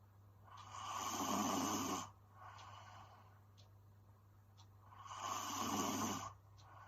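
A sleeping young woman snoring: two snores about four seconds apart, each lasting about a second and a half, and each followed by a softer breath.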